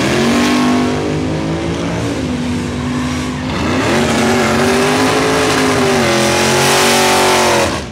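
Muscle car engine at full throttle, revs climbing and holding high, dipping about three and a half seconds in, then climbing again. The second run is held at high revs over the hiss of tyres spinning in a burnout, and cuts off suddenly near the end.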